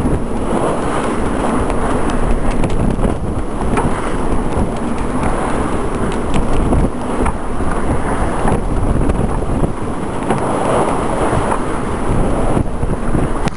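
Wind buffeting the microphone on the deck of a sailboat under way, over the rush of the choppy sea, with a few short ticks.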